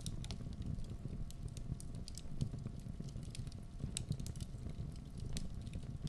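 Wood fire crackling in a fireplace: irregular sharp pops and snaps over a low, steady rumble of flames.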